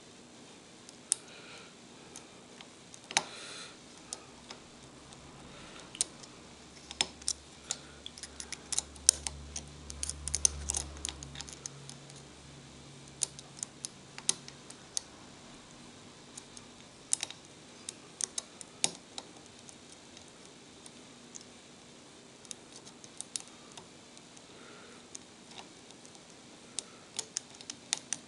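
Lock pick and tension wrench working the pins of a pin-tumbler padlock: scattered small metal clicks at an irregular pace as pins are lifted and set, busiest in the middle stretch.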